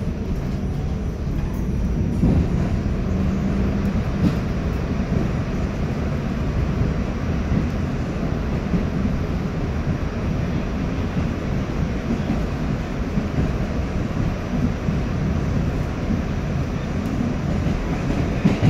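R46 subway train running along the track: a steady low rumble of wheels and motors.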